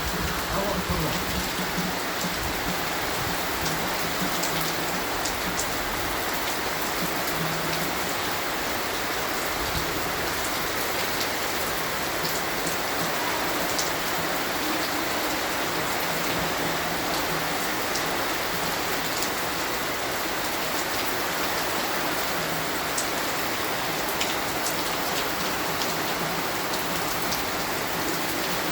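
Steady rain falling, an even hiss with scattered sharper drop hits, over a faint low hum.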